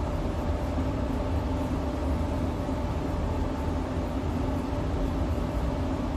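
Steady low rumble and hum of a spray booth's ventilation fan running, even in level throughout.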